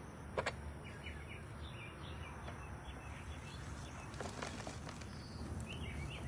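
Outdoor garden ambience: small birds chirping on and off over a low steady rumble, with one sharp tap about half a second in.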